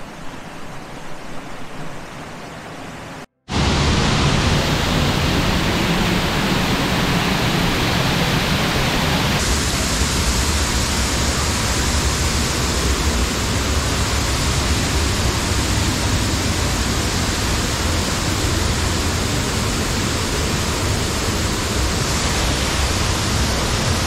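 Sgwd yr Eira waterfall: a steady rush of falling water. It is softer for the first few seconds, cuts out for a moment, then comes back much louder and stays steady.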